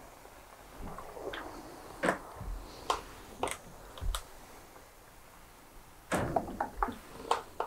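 Clothes iron being moved, set down and picked up on a padded ironing board while a strip of fabric is pressed: a few separate knocks and clicks, then a quick run of clicks and rattles about six seconds in.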